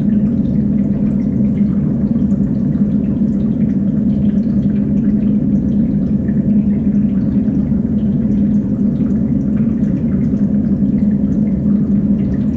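Steady hum of a fish-tank rack's water system, with water trickling and dripping through the tanks.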